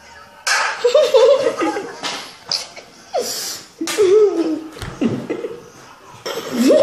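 Boys laughing, breaking out suddenly about half a second in and going on in several loud fits.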